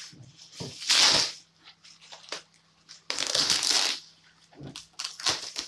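Plastic bin-bag wrapping being pulled and torn open by hand: a loud rustle and crinkle about a second in, a longer one from about three to four seconds in, and smaller rustles and handling knocks between.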